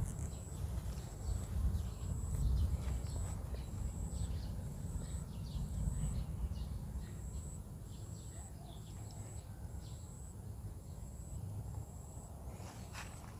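Low rumble on a handheld phone's microphone with faint footsteps as it is carried. A faint, high, short chirp repeats about twice a second and stops near the end.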